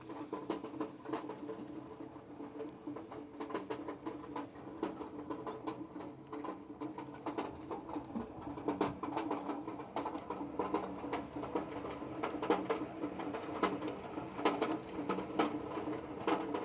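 Raindrops tapping irregularly on an aluminium pan, a quick uneven patter of many small taps that grows busier and louder in the second half.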